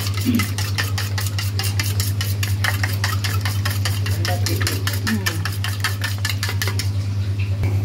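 Egg being beaten with a utensil in a stainless steel plate: quick, even strokes clattering against the metal, about five a second, stopping near the end. A steady low hum runs underneath.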